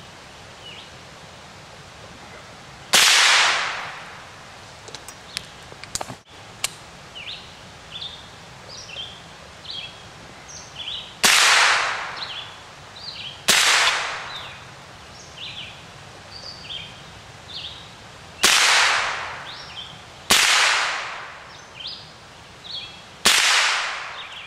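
Six .22 LR rifle shots from an AR-15 fitted with a CMMG .22 bolt conversion, fired singly with pauses of a few seconds between them, each followed by a short echo that dies away.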